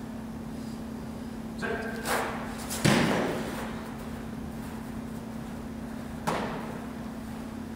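An American football being long-snapped and smacking into a catcher's hands with a thud about three seconds in, echoing in a large hall, then a lighter smack a few seconds later as the ball is caught again. A steady hum runs underneath.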